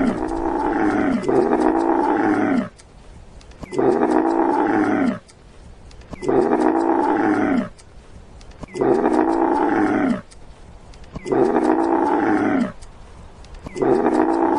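Loud camel calls, each over a second long with a wavering pitch, repeated identically about every two and a half seconds as a looped soundtrack.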